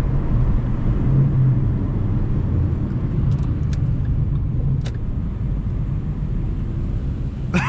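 Ford Mustang's engine and road rumble heard from inside the cabin while cruising, a steady low drone that eases off slightly about five seconds in.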